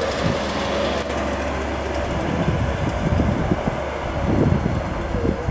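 Hi-rail maintenance pickup truck running along the rails as it approaches: a steady engine drone with a haze of running noise.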